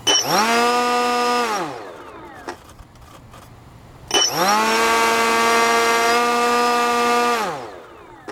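E-flite Park 480 brushless outrunner motor spinning an APC 8x8E propeller, twice. Each time it whines up to a steady pitch almost at once, holds it, then winds down fast when the throttle is cut: the first run lasts about a second and a half, the second about three seconds. The quick wind-down comes from the speed controller's motor brake being on.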